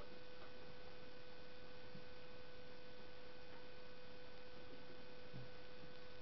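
Steady electrical hum with a thin high whine over background hiss, and a few faint clicks of dog claws on bare wooden floorboards.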